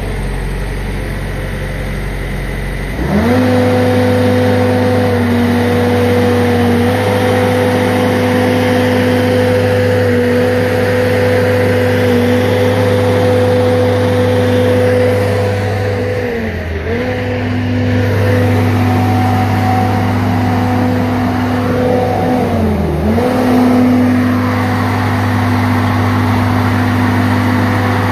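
Ditch Witch SK3000 compact utility loader's engine running, throttled up about three seconds in and then holding steady high revs as it works its grapple. The revs dip briefly twice and recover.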